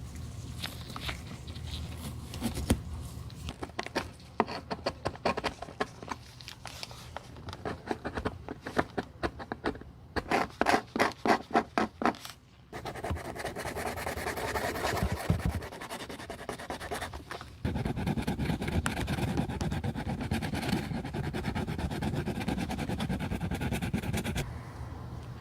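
Shoe-repair hand work on a high-heeled shoe: irregular scraping and scratching strokes, then a quick even run of strokes, about four a second, about halfway through. After that comes a steady rubbing or scrubbing hiss, which gets louder for most of the last third.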